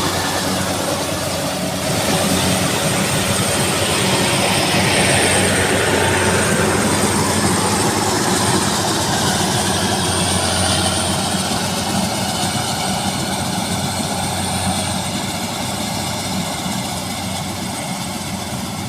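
Rice combine harvesters running, a steady engine drone throughout.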